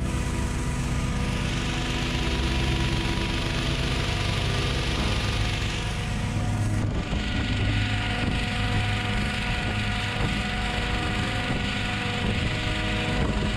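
Petrol-engined inflator fan running steadily, blowing cold air into a hot-air balloon envelope during cold inflation.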